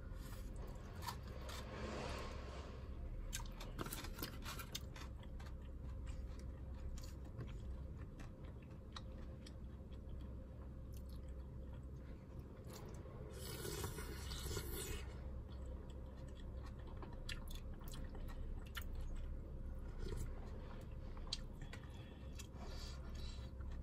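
Someone eating a bowl of sundae gukbap (Korean pork and blood-sausage soup): chewing, with scattered clicks and taps of a spoon and chopsticks against plastic bowls and containers, and a short noisy burst about fourteen seconds in.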